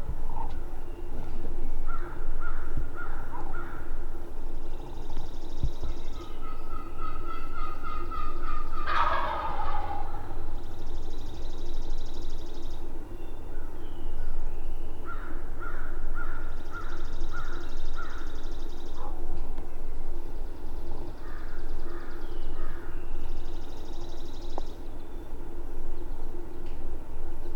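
Wild turkey gobbling once loudly about nine seconds in, amid several runs of short, evenly spaced yelping notes before and after.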